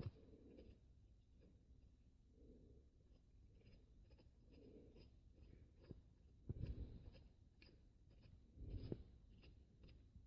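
Faint scratching and rubbing as a home-made shift knob, a nut welded into a cut piece of handlebar, is screwed down the threads of a car's shift lever, with a few soft knocks.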